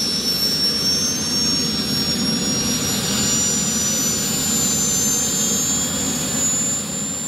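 Small gas turbine of a radio-controlled model jet running: a steady rush under a high whine that slowly climbs in pitch.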